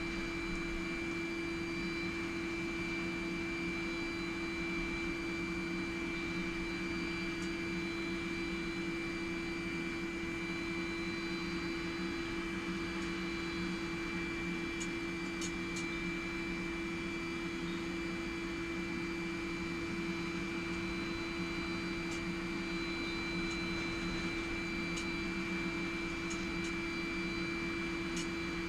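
Small forge running with a steady, even hum that holds a few constant tones, with a few faint ticks here and there.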